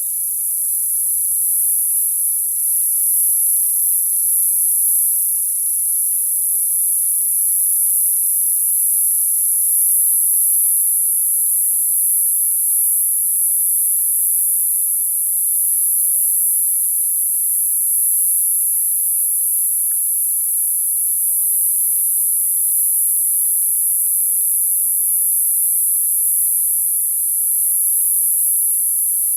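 Summer cicadas singing in a steady, continuous high-pitched drone.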